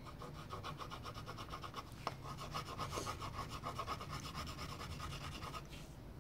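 A crayon rubbed quickly back and forth on paper while colouring in, in rapid, even strokes that stop near the end.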